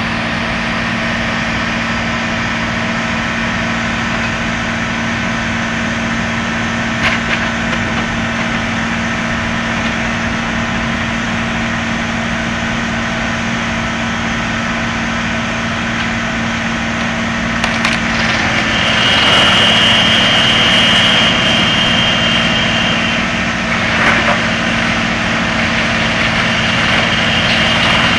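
Fendt 936 tractor's six-cylinder diesel running steadily under load while driving a crane-fed wood chipper for wood chips, with a few sharp knocks as wood goes in. About two-thirds in the sound grows louder and a high whine comes in for a few seconds, then returns briefly near the end.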